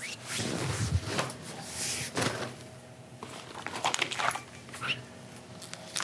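Rustling and handling of bedding and clothes as someone gets up and moves about, in irregular bursts, with a few short vocal sounds.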